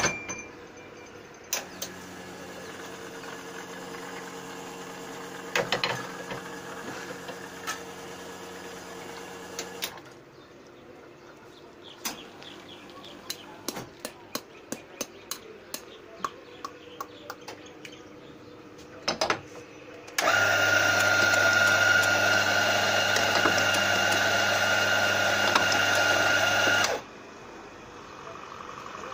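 Espresso coffee grinder running for about seven seconds in the second half, a loud steady whirr as it grinds beans into the portafilter. Before that come a lower steady machine hum and a series of sharp clicks and knocks.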